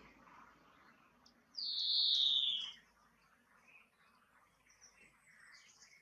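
European greenfinch calling: one drawn-out note falling in pitch, about a second long, starting about a second and a half in, then a few faint short chirps.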